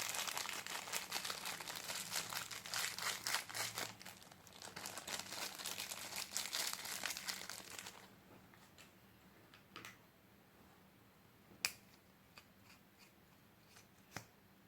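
Slime being handled, a dense crackling and crinkling for about eight seconds, then it drops away to a few scattered sharp clicks.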